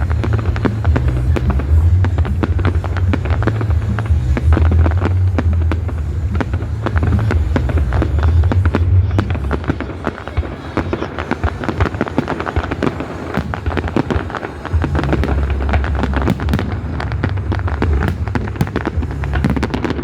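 Fireworks going off in rapid succession: a dense, continuous crackle of many bangs and pops, with deep booming in the first half and again near the end.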